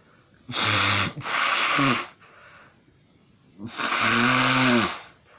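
A person sneezing loudly, over and over: two sneezes in quick succession, then a longer one after a pause, each ending in a voiced sound that falls in pitch.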